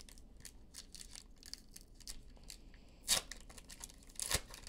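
Foil wrapper of a trading card pack crinkling in the hands, with small crackles, then torn open: two short, louder rips about three seconds in and just over four seconds in.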